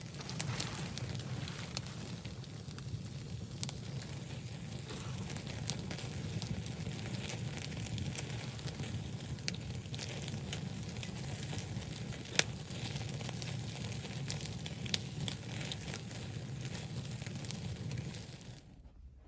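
Wood fire burning in a wood stove, crackling with scattered sharp pops over a steady low rumble. One pop about two-thirds of the way through is louder than the rest, and the sound cuts off shortly before the end.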